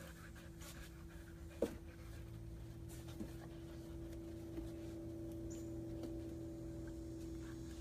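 Faint sounds of a dog moving about on a floor, with a few soft taps, over a steady low electrical hum that gains a second, higher tone about two seconds in.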